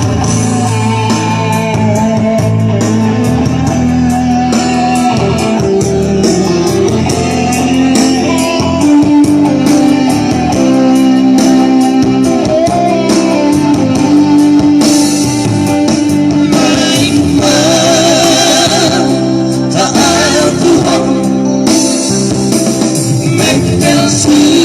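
A vocal trio singing a Batak song over instrumental accompaniment, with long held notes that waver in vibrato.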